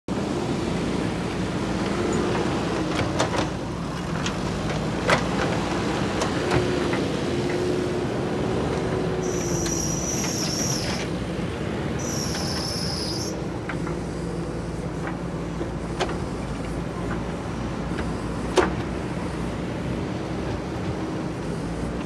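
JCB 3DX backhoe loader's diesel engine running steadily under load as the machine pushes and scrapes soil and stones, with several sharp knocks from the bucket and stones. Two brief high-pitched whines come about ten seconds in and again a couple of seconds later.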